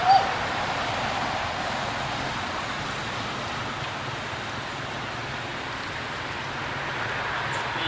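Steady rushing outdoor background noise, with one short, loud, rising squeak at the very start.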